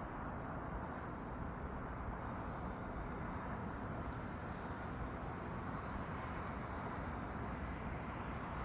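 Steady outdoor ambience: an even low rumble and hiss with no distinct events.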